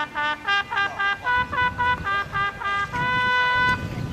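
A bugle call: quick tongued notes jumping between a few pitches, about four a second, ending about three seconds in on one long held note.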